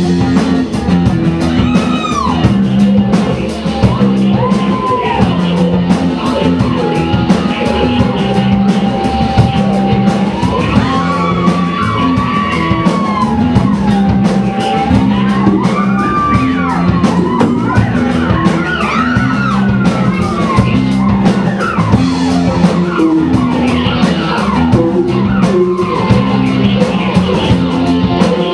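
Rock band playing, with a lead line that slides and bends in pitch over the band.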